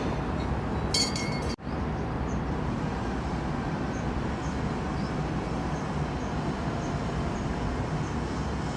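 Steady outdoor rumble with a brief metallic clinking about a second in. The sound drops out for an instant just after the clinking, then the rumble carries on.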